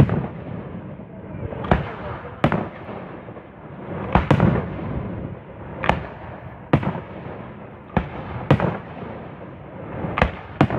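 Fireworks bursting: about ten sharp bangs at irregular intervals, some coming in quick pairs, over a continuous noisy rumble.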